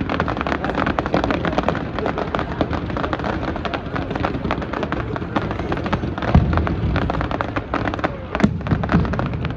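Fireworks display: dense, continuous crackling from many shells bursting, with heavier booms about six seconds in and twice near the end.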